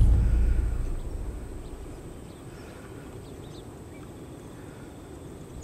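Low-pitched music fading out over the first second or so, then quiet outdoor ambience with a few faint, short bird chirps.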